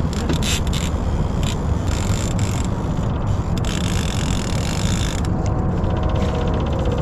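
Steady low rumble of a boat motor, with scraping and rustling handling noise over it; about five seconds in, a run of fast fine ticking begins.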